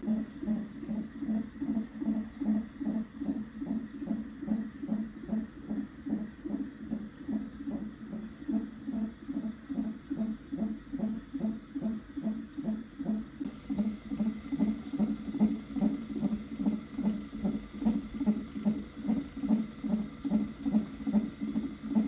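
Fetal heart monitor sounding the unborn baby's heartbeat: a fast, even pulse at a little over two beats a second.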